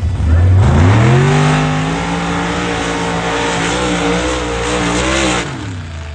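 A vehicle engine revving up hard and running at high revs for about four seconds, then letting off near the end.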